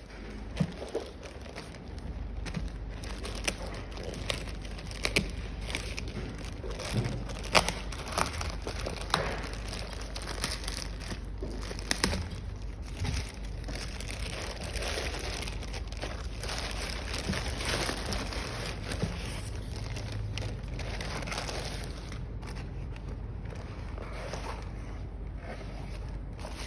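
Packaging being handled and opened by hand: crinkling and rustling with many scattered sharp clicks and knocks, over a low steady hum.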